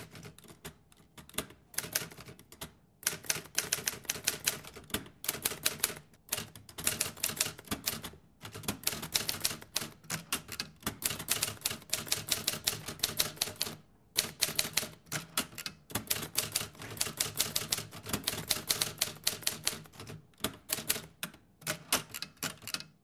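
Typewriter sound effect: rapid runs of key clicks with brief pauses between bursts, matching text being typed out on screen.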